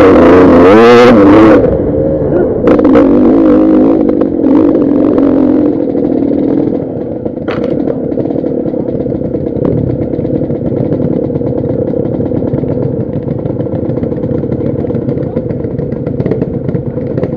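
KTM dirt bike engine revving hard with rising and falling pitch for the first second or two, then pulling at lower revs, and settling to a steady idle from about seven seconds in.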